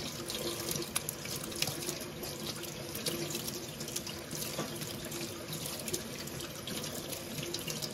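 Cold tap water running steadily and splashing into a stainless steel kitchen sink as hands knead and squeeze a lump of butter under the stream: washing the buttermilk out of freshly churned butter.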